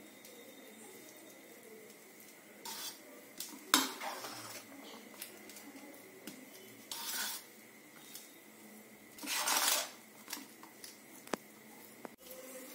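Steel spoon scraping and clinking against a bowl while mixing cooked rice: intermittent short scrapes, a sharp clink about four seconds in, and a longer scrape near ten seconds.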